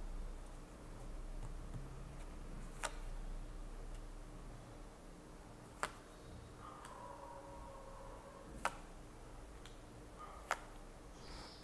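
Tarot cards being drawn from a deck and laid down one at a time, each giving a sharp little click, four in all a few seconds apart, with light shuffling and handling of the cards between.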